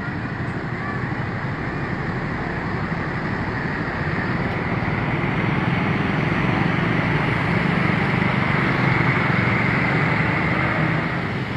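Road traffic: a motor vehicle's engine and tyre noise growing steadily louder as it draws near, loudest around nine to eleven seconds in, then dropping off as it passes. No horn sounds.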